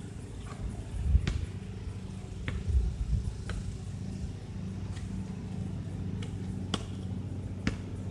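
Distant basketball bouncing on an outdoor court: several sharp knocks at uneven intervals. Underneath is a steady low hum, with two loud low rumbles about a second in and near three seconds in.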